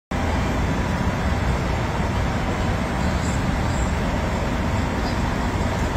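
Steady city street noise: a continuous low rumble of traffic with an even hiss over it.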